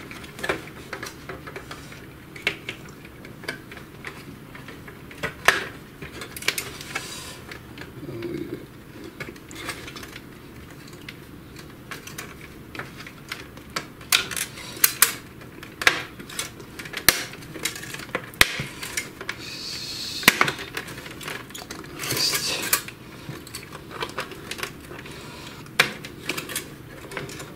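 Irregular clicks and knocks from the parts of a Samsung ML-1210 laser printer being handled and fitted into place during reassembly, a few of them louder than the rest.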